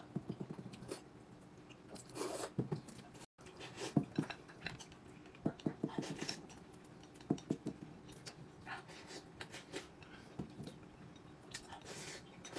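A person eating noisily, with irregular chewing and smacking and a few light clicks of utensils on dishes.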